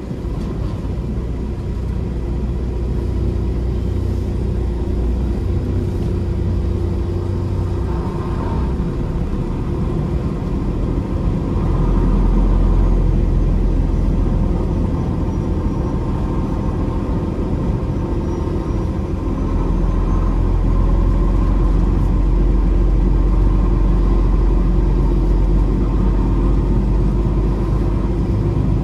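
Peterbilt 389 semi truck's diesel engine running under load, a steady low rumble heard from inside the cab. It gets louder about twelve seconds in and again about twenty seconds in as the truck works harder.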